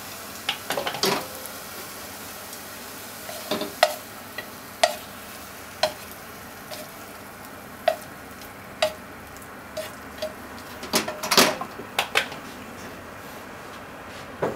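Scallop strings in sauce sizzling in a non-stick frying pan while a wooden utensil stirs and knocks against the pan. The sizzle thins in the second half, sharp knocks come about once a second in the middle, and a quick cluster of louder knocks comes near the end.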